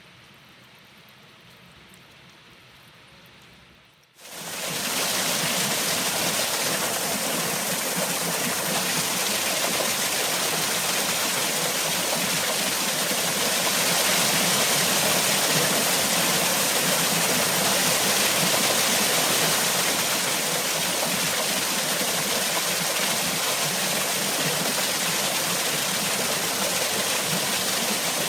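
A faint steady hiss of water, then, about four seconds in, an abrupt cut to loud, steady rushing water from a stream or cascade.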